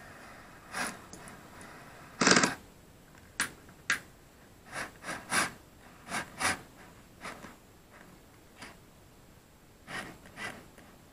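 Cordless drill with a dowel-setting tool driving a drywall dowel into the wall in short bursts. It gives a series of brief sharp clicks and knocks, the loudest a short burst a little over two seconds in.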